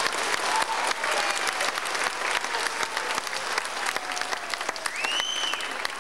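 Audience applauding, many hands clapping.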